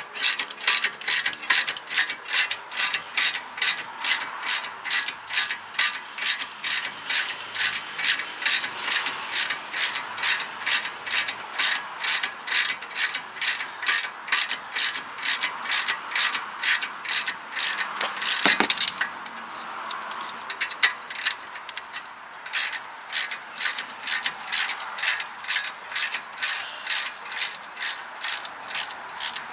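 A hand ratchet and socket clicking steadily, about two to three clicks a second, as it undoes the top bolt of a rear brake caliper. About two-thirds of the way through there is one sharper knock and a brief lull, then the ratcheting resumes.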